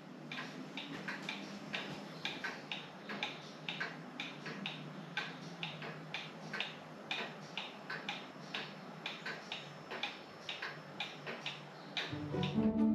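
Mechanical pendulum clocks ticking steadily, about two to three ticks a second. Music fades in near the end.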